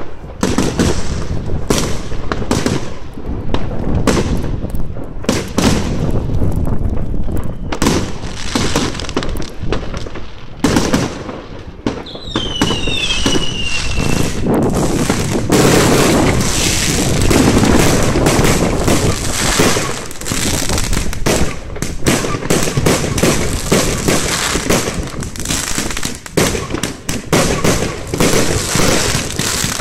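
Fireworks going off in quick succession: rapid bangs and crackling, densest in the middle, with a whistle sliding down in pitch about twelve seconds in.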